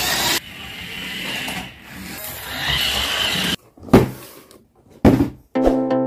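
Radio-controlled toy car's small electric motor whirring and its tyres rolling over a wooden floor, stopping abruptly about three and a half seconds in. Two short loud thumps follow, then electronic music begins near the end.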